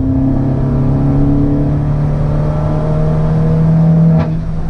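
Peugeot 308 THP's 1.6 turbo four-cylinder engine and exhaust heard from inside the cabin, pulling steadily under light acceleration with its note slowly rising. A short sharp sound and a brief dip in level come about four seconds in.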